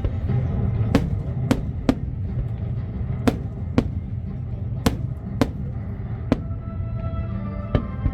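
Fireworks display: about nine sharp firework bangs at uneven intervals over the show's accompanying music.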